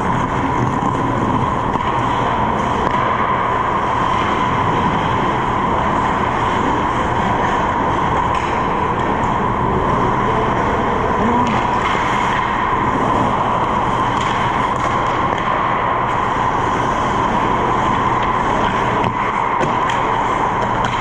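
Steady noise of an indoor ice rink during hockey play: a continuous even hum and hiss with no distinct puck or stick hits standing out.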